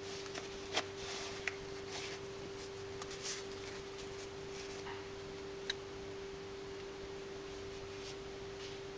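Handling noise as a saddle bag's plastic mount is slid onto the clip under a bike saddle: a few sharp clicks and short rustles of the bag's fabric, mostly in the first half, over a steady low hum.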